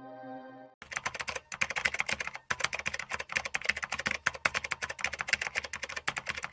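A held ambient music chord ends under a second in. Then comes a rapid, continuous stream of key-typing clicks, many keystrokes a second with a couple of brief pauses early on, like the typing sound effect laid over a typewriter text animation.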